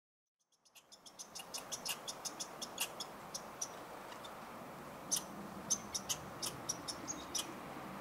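Hairy woodpecker pecking at suet in a wire cage feeder: sharp taps in a quick run of about five or six a second, then single taps spaced out in the second half, over a steady background hiss.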